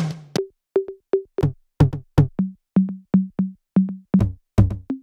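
Snare drum samples from a reggaeton and dembow library previewed one after another: about fifteen short, separate hits, roughly three a second, each with a different pitch and tone.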